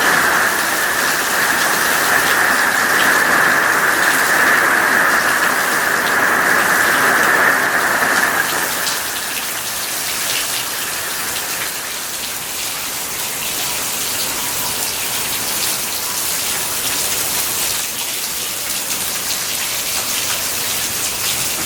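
Heavy rain from a hurricane rain band pouring down, a steady rushing noise that eases slightly about eight seconds in.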